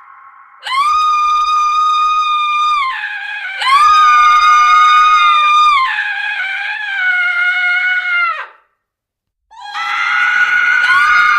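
A woman's high-pitched screams. Two long held screams come first, each about two seconds, followed by a lower wavering cry. After about a second of silence, another scream starts near the end.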